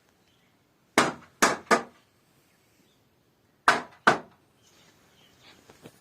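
Hammer blows in a woodworking shop: three sharp strikes in quick succession about a second in, then two more a couple of seconds later.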